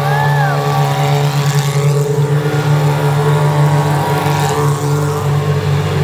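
FIA Formula 3 cars' Mecachrome 3.4-litre V6 engines idling at a steady low pitch as the cars roll slowly by.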